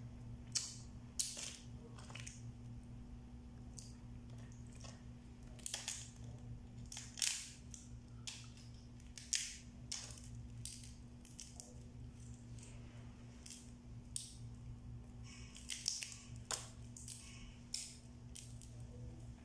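Steamed blue swimming crab shells being cracked and pulled apart by hand: a dozen or so sharp, irregular cracks and snaps of shell, over a steady low hum.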